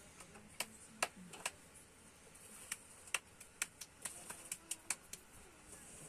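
Scattered sharp clicks and knocks, about a dozen at uneven intervals, from people working and moving about on loose stone and gravel, over a faint steady high hiss.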